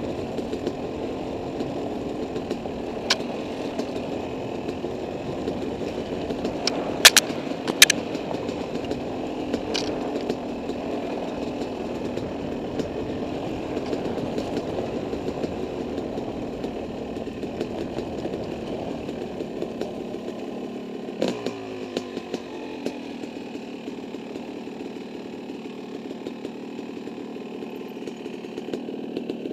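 Dirt bike engine running steadily as the bike is ridden, with a few sharp knocks about seven seconds in; about twenty seconds in its pitch falls and it runs on lower and quieter.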